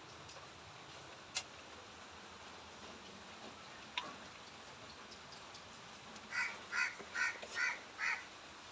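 A cat giving five short calls in quick succession in the last third, the odd noise it makes while pooping. Two sharp clicks come earlier.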